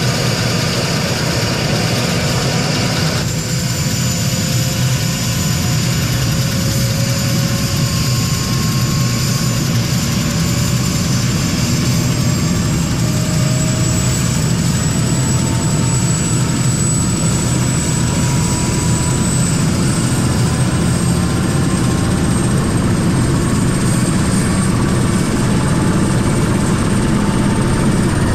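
Helicopter running close by: a steady rotor and engine rumble, with a turbine whine that climbs slowly in pitch.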